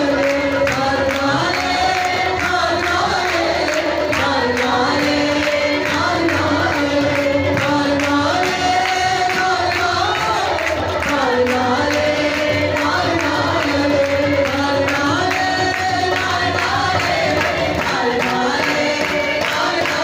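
Punjabi devotional song performed live: a man's voice leads with long held notes over harmonium, with tabla and dholak keeping a steady drum rhythm and other voices singing along.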